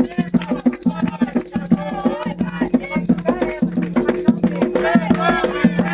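Voices singing a ritual chant, with shaken rattles keeping a fast, steady rhythm.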